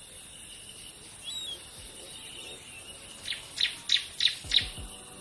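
A bird calling: a short chirp, then a run of five sharp, loud high notes in quick succession about three seconds in, over a steady hiss of insects and outdoor ambience.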